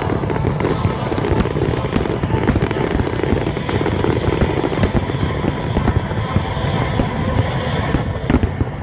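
Fireworks display: a dense, continuous barrage of rapid bangs and crackling with no pause.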